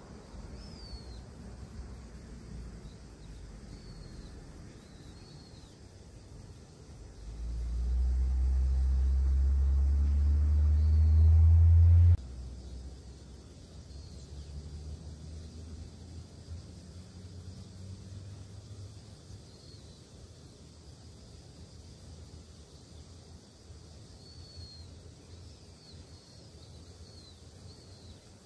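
Low engine rumble of a motor vehicle swells about seven seconds in and cuts off abruptly a few seconds later, leaving a weaker rumble that fades away. Faint short bird chirps are heard on and off throughout.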